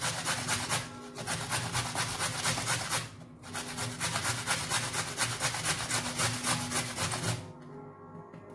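A carrot being rubbed on a hand grater in quick rasping strokes, with short pauses about one and three seconds in, stopping about a second before the end. Soft background music plays underneath.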